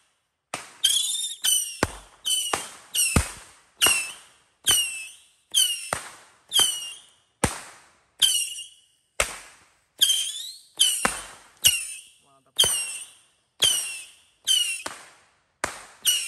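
Box firecracker cake firing a steady string of shots, a little under one a second, each a sharp report with a brief falling high tone and a quickly fading tail.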